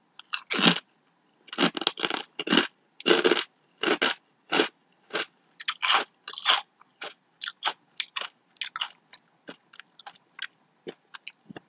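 A crinkle-cut kettle potato chip being bitten and chewed: a run of irregular crunches, loudest in the first few seconds, then growing fainter and shorter as the chip is ground down.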